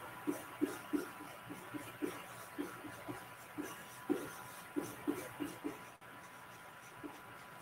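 Pen stylus tapping on a tablet while handwriting a word: a string of faint, short, irregular taps that stop about six seconds in, with one more near the end, over a faint steady hum.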